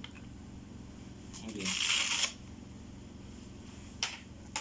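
Velcro strap of a blood pressure cuff being pulled open, a rasping tear lasting about a second, followed near the end by two short clicks.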